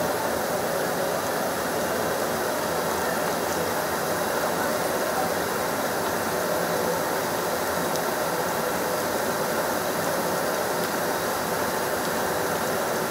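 Large stockpot of chicken drumsticks in braising sauce at a steady rolling boil, a dense, even bubbling hiss.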